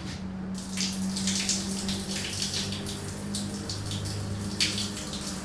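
Water running from a tap and splashing steadily, over a low steady hum.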